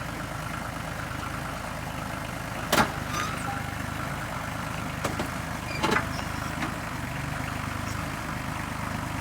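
A vehicle engine running steadily, with two sharp knocks, about three and six seconds in, and a few lighter clicks.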